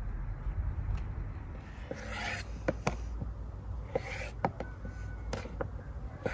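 Chef's knife slicing beef tongue on a wooden cutting board: irregular sharp taps of the blade reaching the board, about eight in all, with brief soft rustles of the meat being moved, over a low steady rumble.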